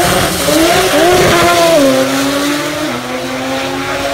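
Drag race cars launching at full throttle and accelerating away down the strip. The engine note climbs early on, then steps down in pitch a few times as the cars pull away.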